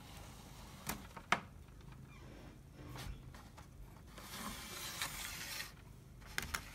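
Handling sounds of a Lego model: a few sharp plastic clicks and taps, with a scraping rustle of about a second and a half in the middle as the model on its baseplate is turned on a wooden table.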